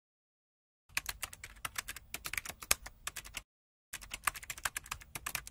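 Computer keyboard typing sound effect: rapid key clicks starting about a second in, in two runs of roughly two and a half seconds each with a brief break between them.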